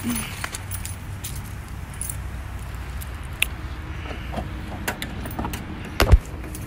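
Keys jingling in small clicks as they are carried, over a low rumble, with one thump about six seconds in.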